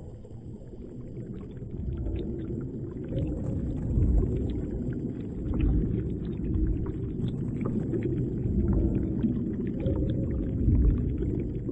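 Underwater ambience picked up by a diving camera: a steady low rumble of moving water with many faint scattered clicks.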